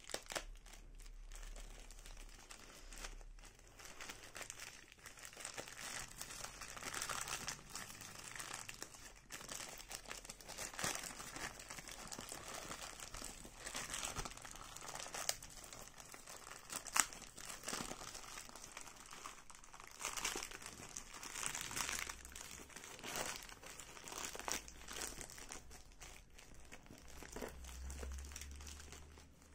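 Plastic courier mailer bag crinkling and tearing as it is pulled open by hand, then the black plastic wrapping around the box inside rustling as it is handled. Irregular rustling throughout, with one sharp click about halfway through.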